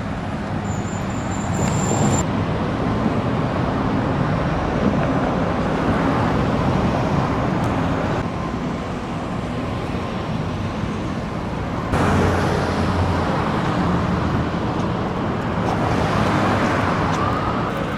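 Road traffic on a busy street: a steady rush of passing cars that swells and eases, with a louder vehicle coming through about twelve seconds in.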